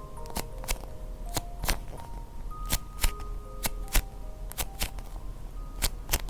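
Light background music of short plinking notes, with irregular sharp clicks or taps over it, about two or three a second.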